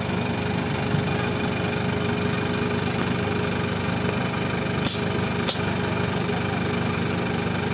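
Mahindra 4x4 jeep engine running steadily at low revs as it crawls up a muddy slope, with two sharp clicks about five seconds in.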